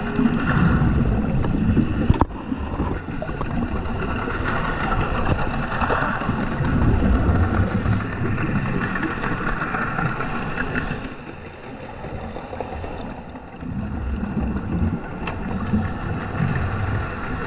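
Underwater sound through a GoPro housing: a scuba diver's regulator exhaling bursts of bubbles every few seconds over a steady low water rumble.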